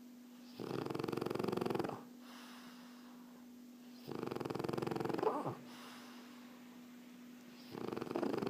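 French bulldog snoring in its sleep: three snores of about a second and a half each, roughly three and a half seconds apart, the last starting near the end. A faint steady hum lies underneath.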